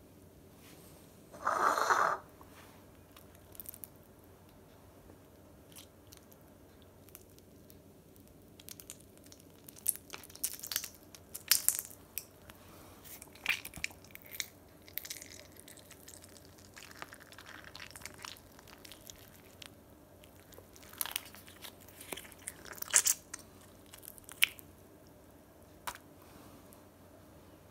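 A soft, wet mass squashed under a hand on a tiled floor: a short squelch about a second and a half in, then scattered quiet crunching and squishing sounds.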